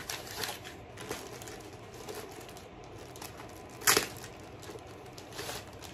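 Plastic packaging rustling and crinkling as it is handled and opened, in short irregular crackles, with one sharp, much louder crackle about four seconds in.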